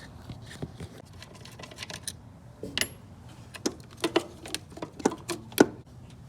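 Irregular light metallic clicks and clinks of hand tools on the clutch master cylinder's fittings, a few sharper ones in a cluster in the second half.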